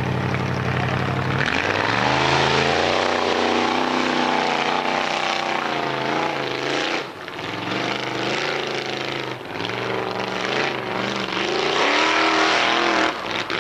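Formula Offroad buggy's engine held at steady high revs, then launched about a second and a half in and driven hard up a steep sandy hill under full load, its revs rising and falling, with two brief drops in the middle.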